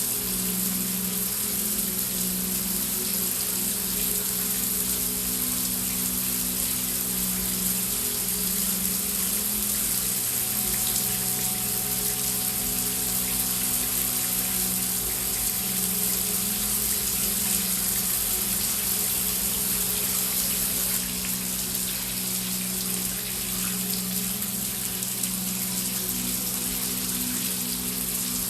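Heavy rain falling in a steady, even hiss with no breaks, over a low steady drone from a background ambient pad.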